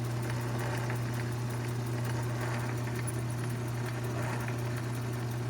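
Mini lathe running steadily with a low hum while a drill bit bores a tap-size hole in the spinning workpiece.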